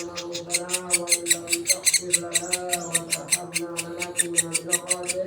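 Woodpecker chick begging while being hand-fed: rapid, evenly repeated high chirps, about eight to ten a second. A steady lower humming tone runs underneath.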